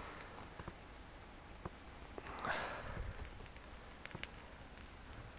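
Faint scattered crackles and ticks of a wood campfire, with a soft crunch about two and a half seconds in.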